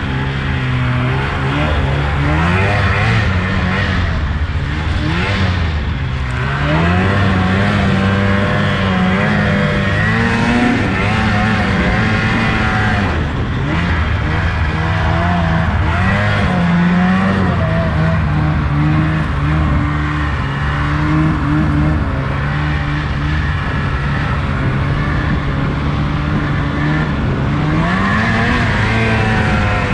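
Two-stroke snowmobile engine running while being ridden, its pitch rising and falling several times as the throttle is opened and eased, over a steady rushing noise.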